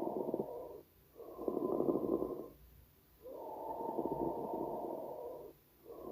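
Recorded lung sounds heard through a stethoscope: a pleural friction rub, a muffled scratching, creaking noise with each breath, coming in four bouts separated by short pauses. It is the sound of inflamed pleural layers rubbing together, the sign of pleurisy.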